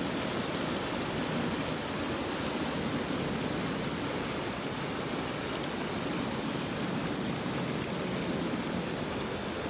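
Steady rush of running water, unbroken and even in level.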